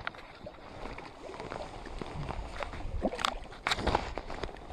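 Lake water lapping against shoreline rocks around a landing net held in the water, with a couple of sharp knocks a little past three seconds in.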